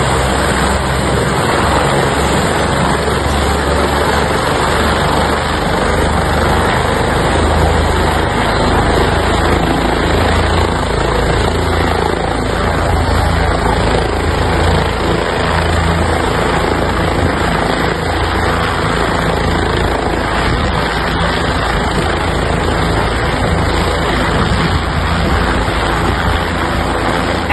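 Helicopter running steadily: loud, continuous rotor and engine noise with a low throb underneath.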